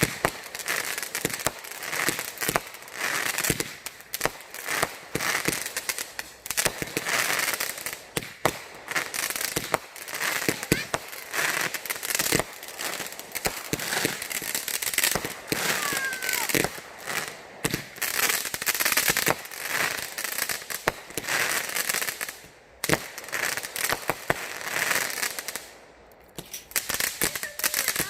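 Fireworks going off: a long, dense run of rapid crackling pops and bangs, with a couple of brief lulls near the end.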